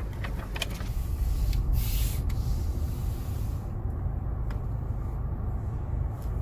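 Car idling in a queue: a steady low rumble, with an even outside hiss and a brief louder rush of it about two seconds in. The hiss drops away suddenly about halfway through, leaving only the rumble.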